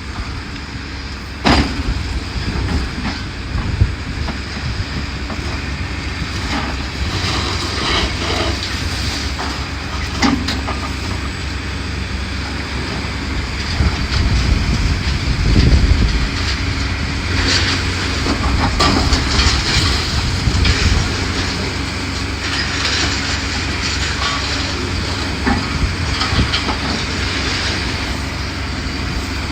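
Building demolition: a heavy demolition machine's engine running under the clatter, scraping and crashing of roof debris. There are sharp impacts about a second and a half in, near four seconds and around ten seconds, and a heavier rumbling crash around the middle.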